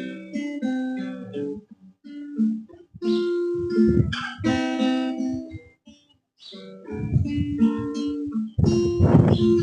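Acoustic guitar played solo: a short melody of plucked single notes and chords, ringing clean and clear rather than muffled, with a few fuller strummed chords near the end.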